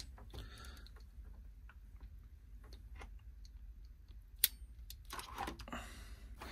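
Crimping pliers and a butt connector being handled while wires are joined: faint scattered ticks, one sharp click about four and a half seconds in, and a rustle of handling near the end.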